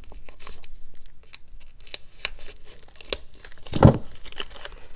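Scissors snipping through the tape on a folded paper note, with paper crinkling and tearing as it is handled, and one louder thump about four seconds in.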